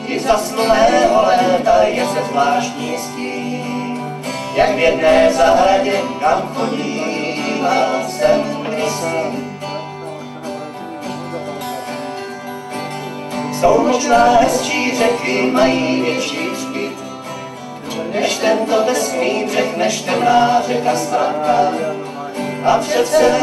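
Acoustic band playing a song, led by acoustic guitars, the music swelling louder in several stretches.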